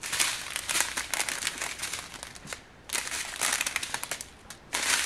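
Clear plastic sleeve of diamond-painting drills crinkling and rustling as it is handled and turned, in two stretches with a brief pause about two and a half seconds in.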